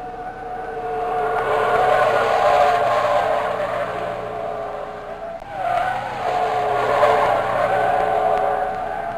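BMW M car driven hard: a sustained high-pitched note from the engine and tyres that swells, dips briefly a little past halfway, and then picks up again.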